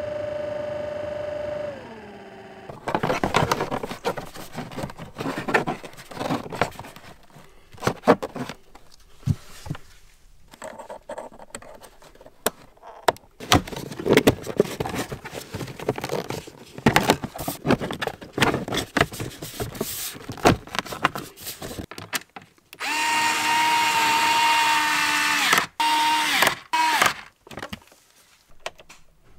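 A radial blower fan whirring steadily, then spinning down about two seconds in. Plastic under-dash trim panels are then handled and clipped into place in irregular clicks and knocks. Near the end a motor whirs steadily at a high pitch for about three seconds, stops briefly and runs once more.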